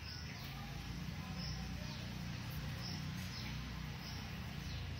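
Outdoor ambience: a steady low background rumble with short high chirps or squeaks recurring about once a second.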